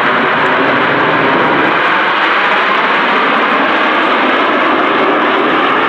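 Jet noise from a formation of Aermacchi MB-339PAN trainers, each with a single Rolls-Royce Viper turbojet, flying overhead: a loud, steady rushing sound that holds even throughout.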